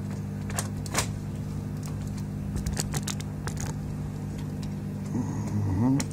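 Light clicks and taps of a PS4 Slim circuit board and connector being handled and seated against its metal chassis, over a steady low hum.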